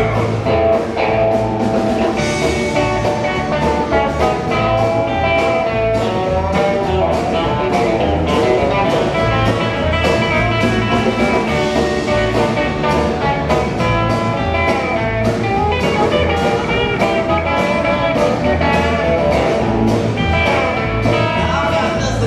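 Live country band playing an instrumental passage with fiddle, acoustic and electric guitars, upright bass and drums, over a steady beat; no singing.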